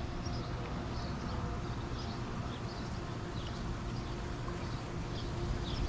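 Steady rush of a lazy river's moving water, with small birds chirping over it.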